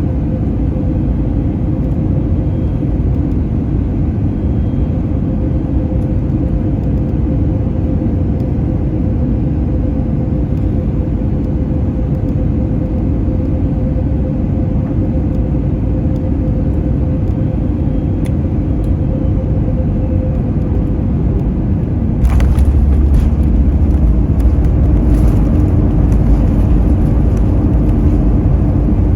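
Cabin noise inside an Airbus A321neo with CFM LEAP-1A engines: a steady airflow and engine rumble with a faint held tone that fades. About 22 seconds in, the sound suddenly gets louder, with a heavy low rumble and rattling. This is typical of touchdown, with the wheels running on the runway and the engines spooling up.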